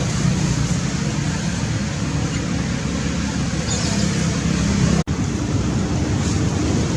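Steady low rumbling background noise, like road traffic or an engine, with a brief cut-out about five seconds in.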